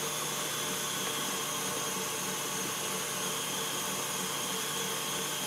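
Stand mixer running steadily with its whip attachment, whipping cream into a cream-cheese mixture until it thickens; the whipping is almost done.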